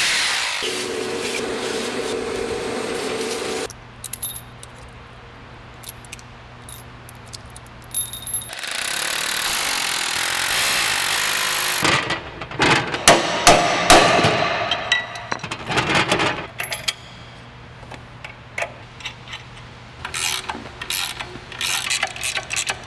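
Makita hammer drill boring into a concrete floor for wedge anchors, running in two stretches, the first ending about four seconds in and the second from about eight to twelve seconds. Then a run of sharp metal strikes, the anchors being hammered in, followed by light clinks of nuts and washers.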